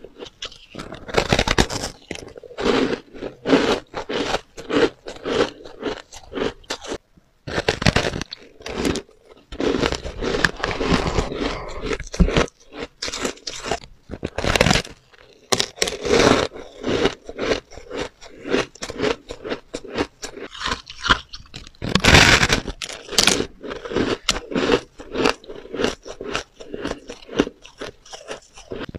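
Close-miked biting and chewing of a slab of blue-dyed soft shaved ice: dense, irregular crunching that goes on throughout, with short gaps between bites.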